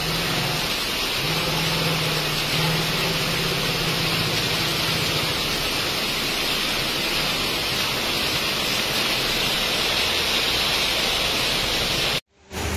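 Heavy monsoon rain pouring steadily onto a paved street, a dense, even hiss. A low steady hum sits under it for the first few seconds, and the sound cuts off abruptly near the end.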